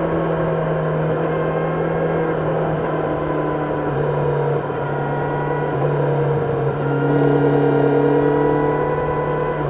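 Kawasaki Ninja 1000SX inline-four engine heard from on board while riding, running at fairly steady revs with the pitch stepping up and down a little a few times as the throttle changes.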